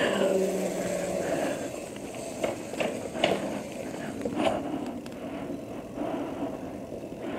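Homemade mini bike built from a Razor E300 electric scooter rolling along a sidewalk. Its electric motor hums low for the first second or so and then fades, leaving tyre and rolling noise with a few scattered knocks and rattles.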